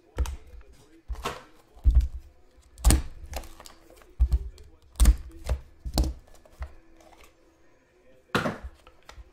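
Irregular knocks and thumps as a sealed trading-card box is handled, its wrapper torn off and its lid opened, with sharp clicks on each hit.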